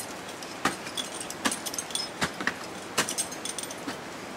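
Steel crampons biting into ice as a climber walks flat-footed, all points set on each step (French technique). Each step is a sharp crunch, about five in all, at a steady walking pace.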